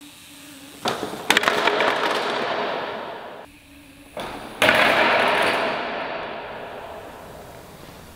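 Trials bike and rider crashing onto a hard stage floor during a failed trick. A sharp clattering crash comes about a second in, and a louder crash near the middle. Each one rings out in a long echo through a large warehouse.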